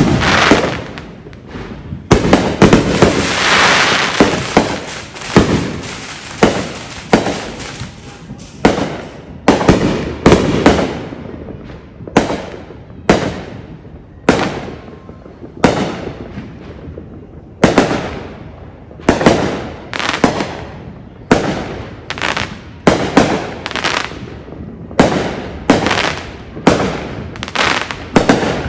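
Fireworks going off in a long, irregular run of sharp bangs, roughly one or two a second, each fading out. A stretch of dense crackling hiss comes about two to five seconds in.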